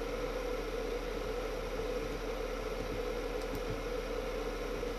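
Steady electrical hum with an even hiss, a constant background drone with no events in it.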